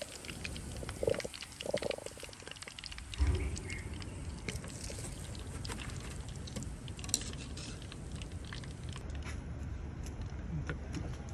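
Hot frying oil sizzling with a steady fine crackle. A few short knocks come in the first two seconds and a dull thump about three seconds in.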